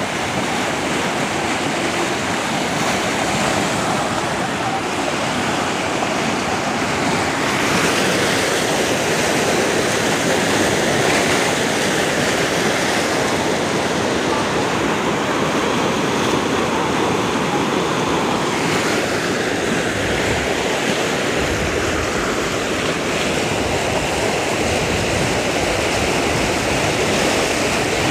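Muddy floodwater rushing and churning down a seasonal hill-torrent stream bed in spate: a steady, loud, unbroken rush of water.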